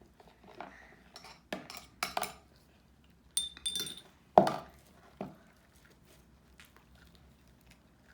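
A utensil clinking and knocking against a dish or bowl, a series of separate strikes. One ringing clink comes a little over three seconds in and the loudest knock just after it; the last few seconds are quieter.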